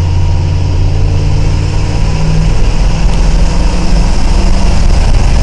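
A 1979 Ford F-150 pickup's engine running steadily, its pitch stepping up slightly about two seconds in. It has freshly reset timing and a fixed vacuum leak.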